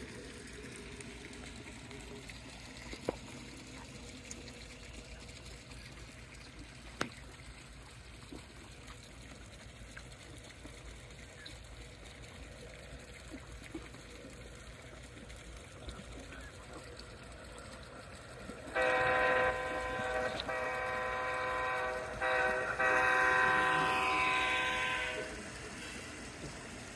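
Sound-decoder diesel horn of a G-scale Bachmann Dash-9 model locomotive, played from its onboard TSU-4400 sound system: a loud multi-note chord blown for about six seconds near the end, in a few blasts broken by short gaps. Before it there is only a faint steady background with a couple of small clicks.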